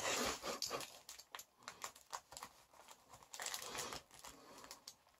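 Faint crinkling and scraping of clear tape and paper wrapping as a utility knife blade cuts at a taped package, with scattered small clicks; a short rustle about three and a half seconds in.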